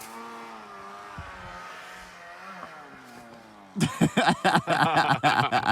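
Ski-Doo snowmobile engine running at a steady pitch that dips briefly. About four seconds in, louder music and voices start over it.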